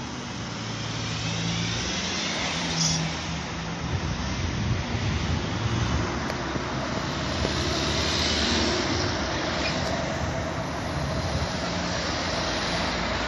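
Class 37 diesel locomotive's English Electric V12 engine approaching from a distance, its drone slowly growing louder over a steady background of road traffic and outdoor noise.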